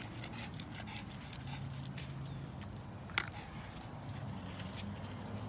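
A pug's claws and paws tapping on a paved path as it walks on a leash: a quick, uneven run of small clicks, with one sharper click about three seconds in.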